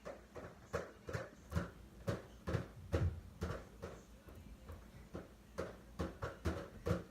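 Repeated thuds of a person's hands and feet hitting the floor during burpees, about two to three a second.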